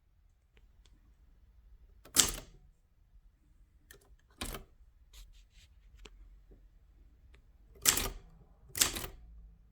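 Facit manual typewriter keys struck one at a time, slowly and unevenly: sharp clacks of the type bars hitting the platen, the loudest about two seconds in and twice near the end, with fainter mechanism clicks between.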